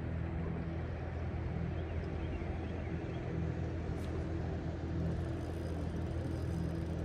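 Boat motor running steadily: an even, low hum. A single faint click comes about four seconds in.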